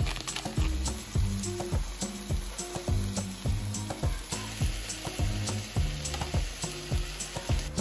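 Ground beef sizzling in a frying pan as it is stirred with a metal spoon, the sizzle growing louder about halfway through. Background music plays under it.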